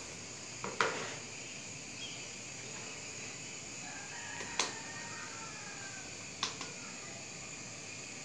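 Three sharp clicks, about a second in, near four and a half seconds and near six and a half seconds: metal bangles clinking as a hand scoops and presses mashed-potato tikki mixture in a plastic bowl, over a steady low hiss. A faint drawn-out call sounds in the background between about four and five and a half seconds.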